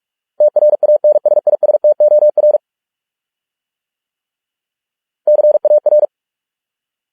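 Morse code sent as a single steady beeping tone at 45 words per minute, keyed on and off in dots and dashes. One word's worth of pulses runs for about two seconds starting half a second in, then silence, and a shorter group of pulses starts about five seconds in.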